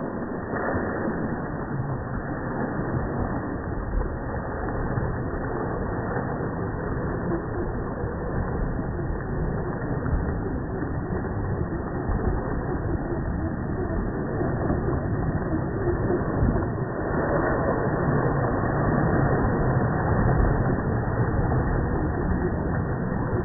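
Axial SCX10 radio-controlled crawler driving through mud and standing water, its electric motor and drivetrain running steadily. It gets louder for a few seconds about two-thirds of the way in.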